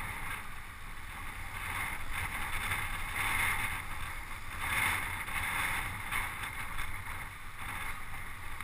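Wind rushing over the microphone of a camera on a moving road bicycle, swelling and easing every second or two, over a steady low rumble from the ride.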